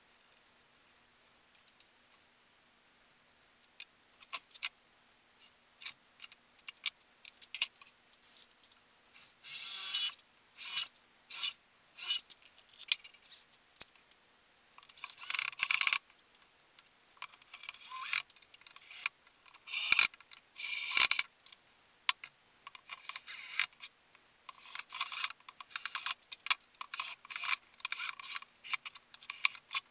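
Cordless drill run in short bursts into wood, with rubbing and clattering from handling in between.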